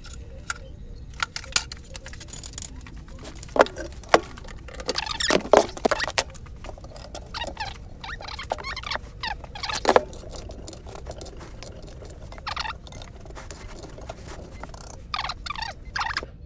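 Clicks, knocks and short metallic rattles as a scroll saw blade is fitted and clamped by hand, and a wooden board is shifted on the saw table. The saw's motor is not running.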